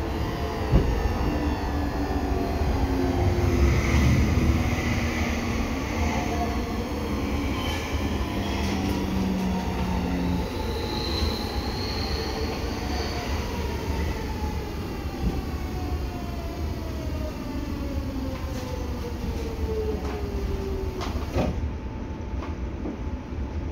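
Seibu 6000 series train's Hitachi GTO-VVVF inverter and traction motors whining under running rumble. The inverter tones step and then fall steadily in pitch as the train slows, and cut off sharply near the end with a click.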